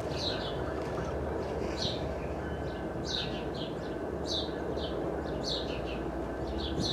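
A small bird chirping over and over, each chirp short and falling in pitch, over a steady low rumble.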